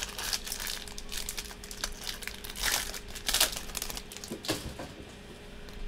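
Foil wrapper of a sports-card pack being torn open and crinkled by hand: a run of irregular crackling rustles, loudest about three seconds in.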